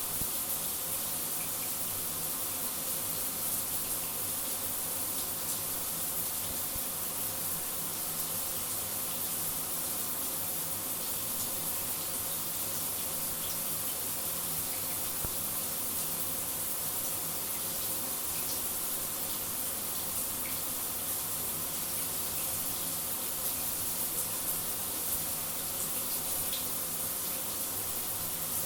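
Shower running: a steady, even hiss of falling water spray, unbroken throughout.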